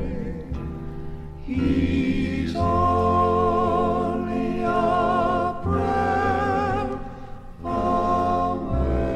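Southern gospel male quartet singing in close harmony: long held chords with vibrato, the phrases broken by short breaths about one and a half, five and a half and seven and a half seconds in.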